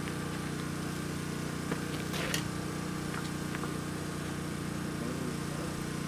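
Steady low hum of an idling engine, with a faint light clatter about two seconds in.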